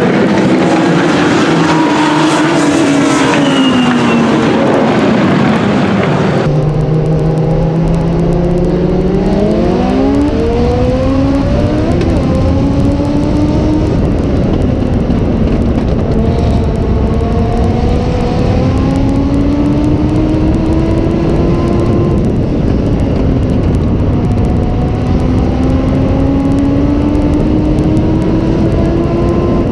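Legends race cars running on the track as heard from the grandstand. Then, about six seconds in, the close sound of a Legends car's Yamaha four-cylinder motorcycle engine heard from on board, revving up and easing off in turn several times as the driver accelerates and lifts.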